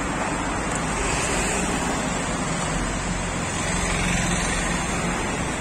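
Steady road traffic noise: cars driving along a city road.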